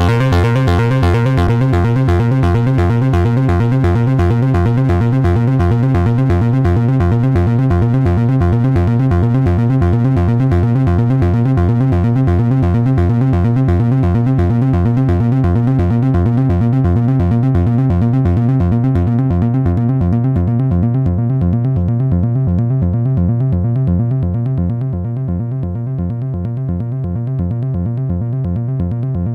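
Behringer 2600 analog synthesizer playing a hypnotic, repetitive pulsing sequence with a steady drone. The sound grows duller from about two-thirds of the way through as its treble fades away.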